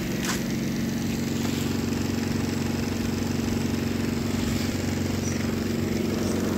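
Steam-boiler plant machinery running with a steady, low drone.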